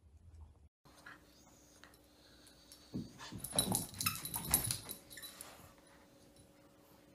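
A small dog vocalising in a dense flurry of short sounds for a couple of seconds around the middle, over a faint steady hum.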